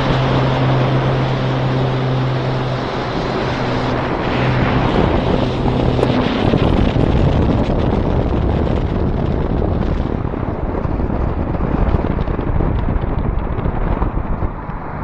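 Wind rushing over the microphone of a camera held out of a car driving at speed, over engine and road noise. A steady low engine hum sits under it for the first six seconds or so.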